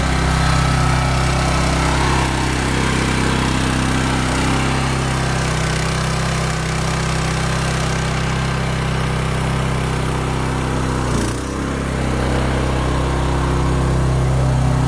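Small engine of a high-pressure hydraulic pump running steadily at a constant pitch, with a brief dip in level about eleven seconds in.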